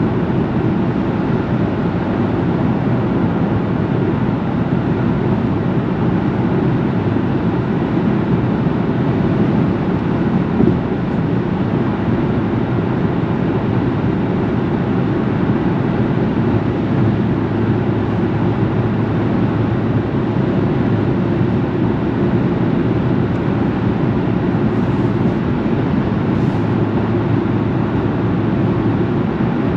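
Steady, low vehicle rumble with an even level and no distinct events.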